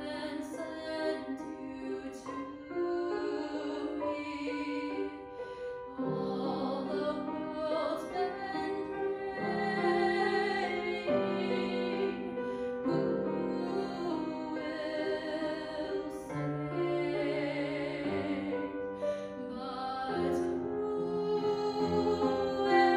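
A woman singing a slow song solo, holding long notes with vibrato, accompanied by a grand piano.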